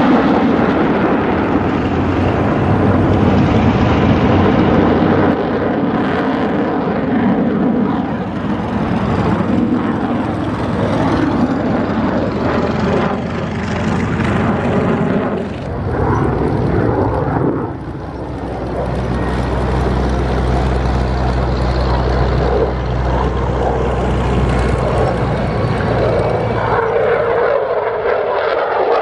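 Loud, continuous jet noise from an F-16 Fighting Falcon fighter flying overhead during its display. The noise dips briefly twice in the middle, then settles into a steadier low rumble.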